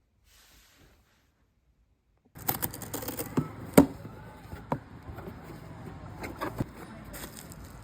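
Silence, then about two seconds in a steady background hum starts, with a series of sharp clicks and knocks, the loudest about a second later.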